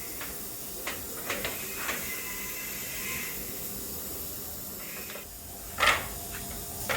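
Steady hiss with a few sharp knocks from work on wood, the loudest near the end.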